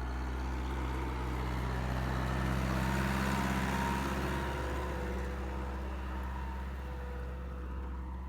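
Massey Ferguson 274S tractor's four-cylinder diesel engine running steadily, swelling a little louder for a couple of seconds near the middle.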